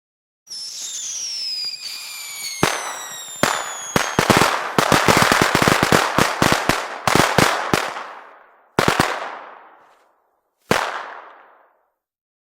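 Fireworks. A hissing fuse with a few falling whistles comes first, then a fast string of sharp bangs and crackles. Two last single bangs follow, each dying away.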